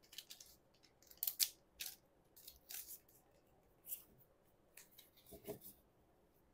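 Faint, short rustles and slides of trading cards being gathered off a cloth playmat and squared into a stack, with a slightly fuller knock of the stack about five and a half seconds in.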